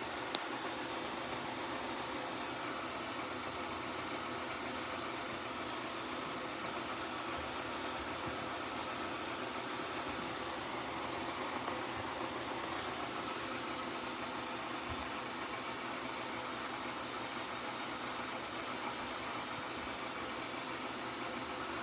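Vintage Whirlpool refrigerator running with a steady mechanical hum and hiss, with one sharp click just after the start.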